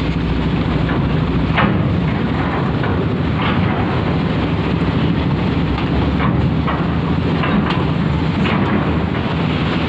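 Diesel engine of an Isuzu NQR 71 medium bus running as the bus pulls away at low speed, a steady low hum with a few short knocks mixed in.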